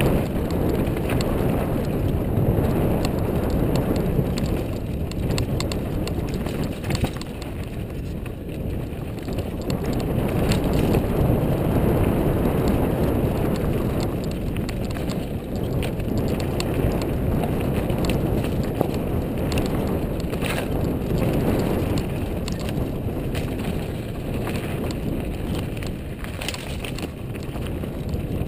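Mountain bike descending a dusty, rocky dirt trail: steady noise of knobby tyres on dirt and gravel, with the bike clattering and knocking over rocks and bumps.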